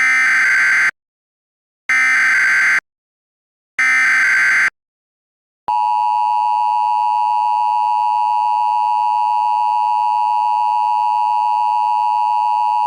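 Emergency Alert System header: three short bursts of SAME data tones, evenly spaced about two seconds apart. About six seconds in comes the loud, steady EAS attention tone, which holds without a break.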